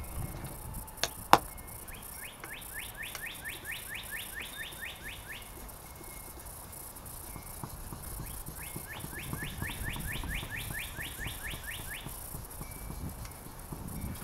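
A songbird singing two runs of rapidly repeated falling chirps, about five notes a second, each run lasting some three seconds. Just over a second in, a sharp knock, as of the plastic alcohol bottle being set down on the glass table.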